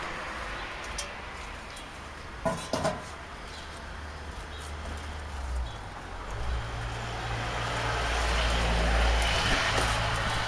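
A low, steady rumble of passing road traffic that swells near the end, with two short knocks about two and a half seconds in.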